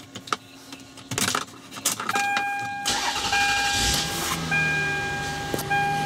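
2000 Toyota Avalon's 3.0-litre V6 being started: a few clicks of the ignition key, then the engine cranks, catches about three seconds in and settles into a steady idle. The engine is misfiring and setting random and cylinder-1 misfire codes.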